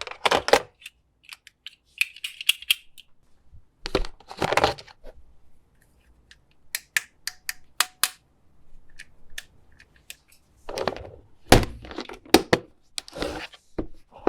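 Plastic toy pieces and packaging handled during an unboxing: sharp clicks and taps, with short bursts of crinkling and crackling.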